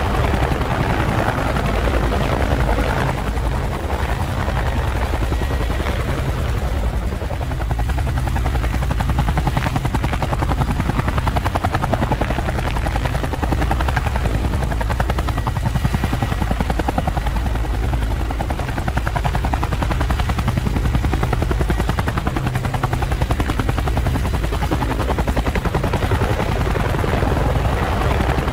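Steady, fast-pulsing rotor noise of a camera drone's propellers as it hovers in place.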